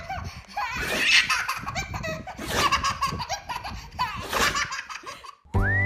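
A baby laughing hard in repeated fits of belly laughter. Just before the end it cuts to music that opens with a whistled note, which rises and then holds.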